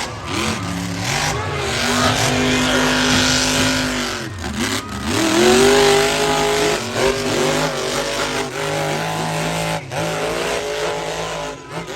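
Monster truck engines revving hard in a race. Their pitch drops and climbs again and again over a noisy rush, and the loudest rev climbs a little after halfway.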